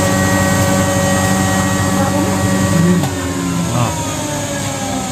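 Electric motor of a home-built rice-hulling mill running with a steady hum, then winding down with a slowly falling pitch about three seconds in.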